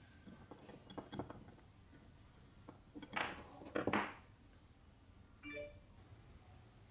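Small metal parts and tools clinking and scraping as a screwdriver works a part out of an old electric chainsaw's metal cover plate. A few light clicks come first, then two louder clatters about three and four seconds in, and a short metallic ring near the end.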